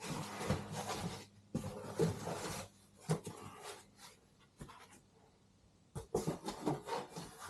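Packaging being handled while a box is unpacked: bursts of rustling and scraping with scattered clicks and knocks. There is a quieter stretch in the middle, and the handling picks up again near the end.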